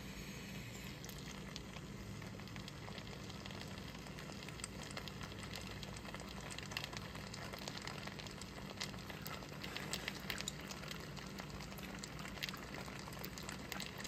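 Spaghetti in thick tomato sauce simmering in a pan, crackling and popping faintly, with scattered small clicks as a fork twirls and lifts the pasta. A steady low hum lies underneath.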